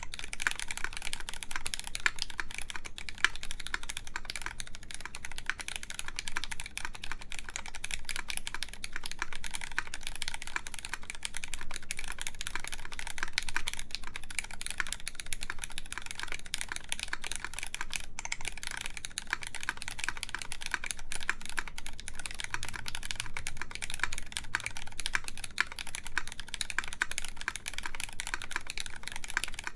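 Steady, fast typing on a mechanical keyboard with lubed linear Cherry MX Black Clear Top switches in an aluminium-plate, top-mount KMAC Happy board with GMK keycaps: a continuous stream of keystroke clacks.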